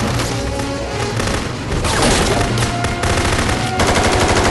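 Film soundtrack of sustained rapid automatic gunfire, shot after shot with no gap, over dramatic score music. It gets louder about two seconds in.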